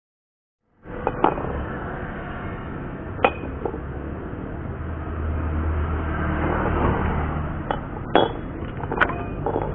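Light metallic clinks and taps as pieces of steel square tubing are handled and set down on a concrete floor: a handful of sharp separate knocks, the loudest about three seconds in and near the end. Steady background noise runs underneath, with a low rumble swelling in the middle.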